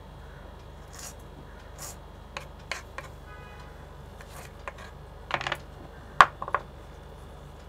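Kitchen knife slicing green chillies on a wooden cutting board: irregular light taps of the blade on the board. A cluster of louder knocks comes a little past five seconds in, with the sharpest one about six seconds in.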